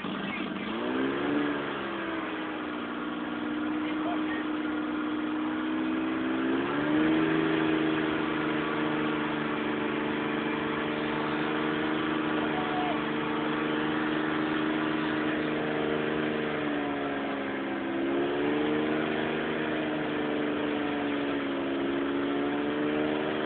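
Pickup truck engine running under load as the truck crawls up over rocks, its revs stepping up a little after a second and again about a third of the way through, then sagging and picking back up about three-quarters of the way in.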